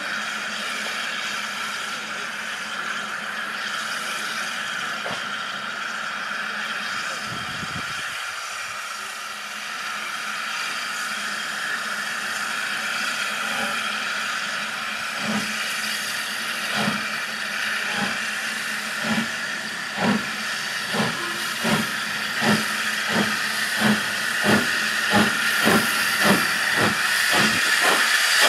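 LNER D49 class No. 62712 Morayshire, a three-cylinder 4-4-0 steam locomotive, hissing steam steadily, then starting away: its exhaust beats begin about halfway through, slow at first and quickening to about two a second as it gets under way.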